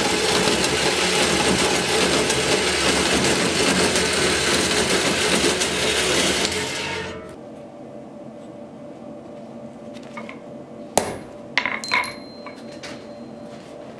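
A workshop machine runs with a steady, noisy sound and shuts off about seven seconds in. A few seconds later comes a quick cluster of sharp metallic clinks, the last ones ringing briefly, as steel tools or workpieces knock together.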